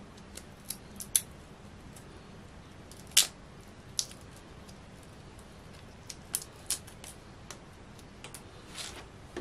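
Raw shrimp being peeled by hand: scattered small crackles and clicks as the shell is broken and pulled away. The loudest crackle comes about three seconds in, and a few come close together around six to seven seconds.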